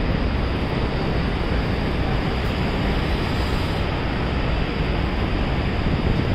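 Steady city street noise: an even roar of traffic, with no single sound standing out.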